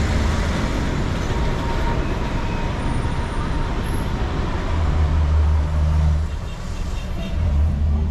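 Road traffic noise heard from inside a car in slow city traffic: a steady mix of engine and tyre noise with a deep rumble that swells about five seconds in and again near the end.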